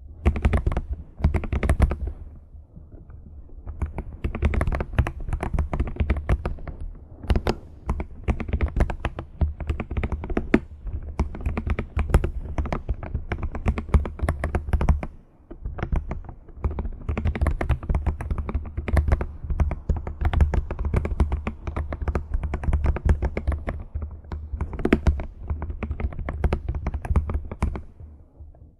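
Computer keyboard typing: rapid runs of key clicks and taps, with brief pauses about three seconds in and about halfway through.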